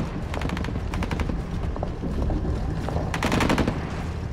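Two short bursts of rapid automatic gunfire, the first about half a second in and the second about three seconds in, over a steady low rumble.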